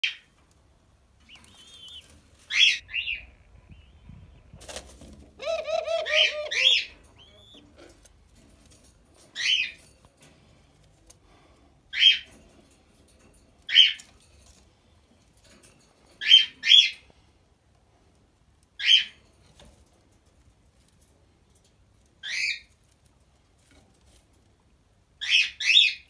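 17-day-old white dove squabs peeping: short, high-pitched calls every two to three seconds, some in quick pairs. About five seconds in comes a brief flutter, then a longer, lower, wavering call.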